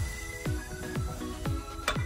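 Background music with a steady beat, about two drum hits a second under held notes.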